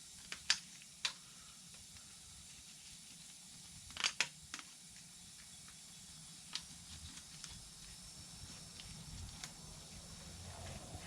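Stiff poly netting being handled and threaded through a quad's nerf-bar frame: a few faint, sharp plastic clicks and ticks, with a small cluster of them about four seconds in.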